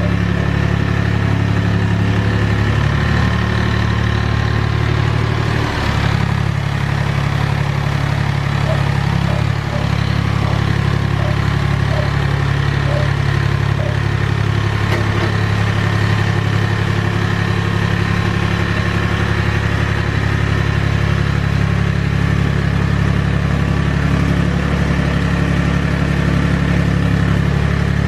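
Mahindra 3525 tractor's three-cylinder diesel engine running steadily while the tractor works a box blade through dirt. The engine pitch shifts briefly about six seconds in, then holds steady.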